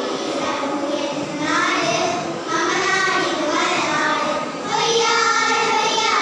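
A group of young girls singing a song together in unison, their voices holding and sliding between sustained notes, a little louder toward the end.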